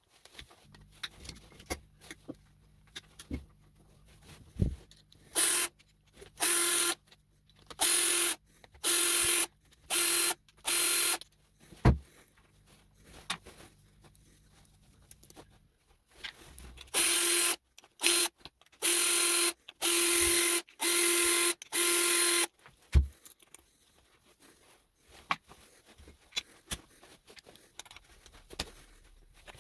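A small electric tool's motor running in short bursts of half a second to a second, each starting and stopping sharply at one steady pitch, in two clusters. Scattered clicks and knocks of small metal parts come between them.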